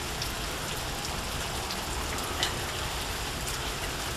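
Steady rain falling, with a few scattered raindrop ticks.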